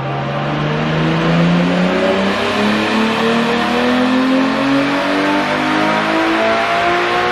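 Nissan Skyline R33's turbocharged RB25DET straight-six at full throttle on a chassis dyno, its pitch rising steadily for several seconds as the revs climb through a power run.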